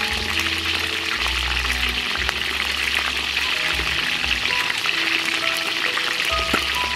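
Chicken pieces deep-frying in hot oil: a steady sizzle full of fine crackles, under background music with a plain melody and a low bass line.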